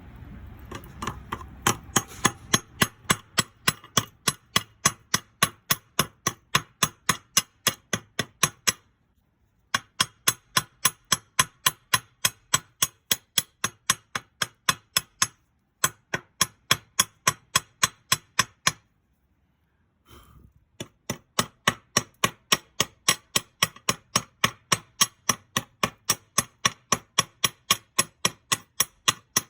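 Chipping hammer striking the E6013 flux slag on a fresh stick weld, sharp metallic strikes about three to four a second with a few brief pauses. The slag takes a lot of force to come off, which he guesses means the weld ran a little cold and the amperage could have been higher.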